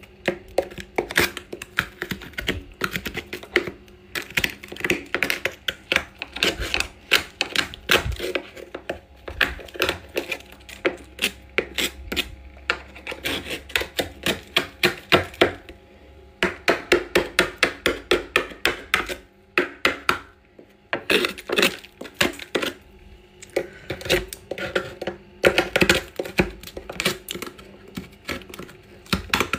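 Thick freezer frost being scraped off the inside walls of a chest freezer with a plastic scraper: rapid crisp, crunchy scratching strokes in runs, with short pauses between them, including one near the middle.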